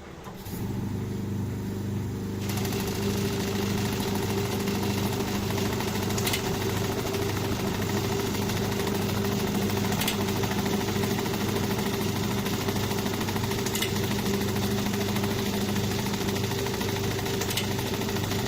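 XH-Y3 sheet counting machine running: a steady motor hum that comes up about half a second in, with a hiss filling in about two seconds later and a faint sharp tick about every four seconds.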